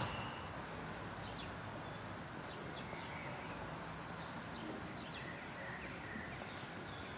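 Street ambience: a steady low rumble under short bird chirps scattered throughout, with a sharp click right at the start.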